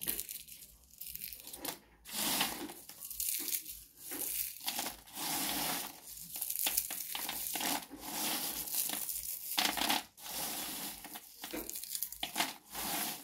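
A hand stirring and scooping freshly oven-roasted skin-on peanuts on a metal baking tray. The nuts rattle and their papery skins crackle in repeated rustling bursts. That dry crackle is the sign that the peanuts are fully roasted.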